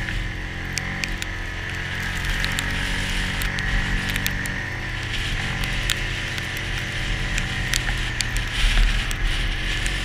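Yamaha Grizzly ATV on snow tracks driving through snow: a steady engine drone with a high whine over it, and scattered sharp clicks and ticks. The engine note shifts about halfway through.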